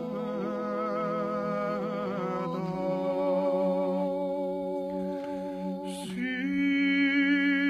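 Georgian men's chorus singing a cappella in close polyphony: sustained chords over a low held note, the upper voices moving to a new chord about two and a half seconds in and again about six seconds in.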